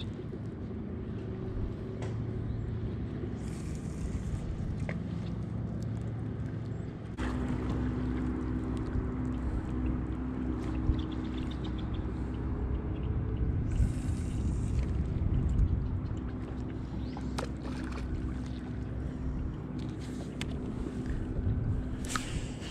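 Boat motor running steadily, a low hum with a steady tone that steps up and gets louder about seven seconds in.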